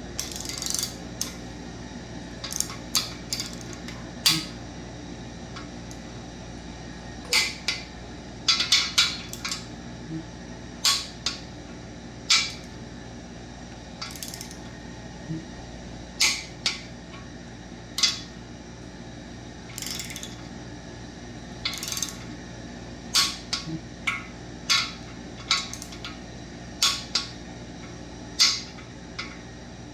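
Metal hand tools and engine parts clinking and tapping, irregularly with short pauses, as main bearing caps are worked on to check bearing clearance. A steady low hum runs underneath.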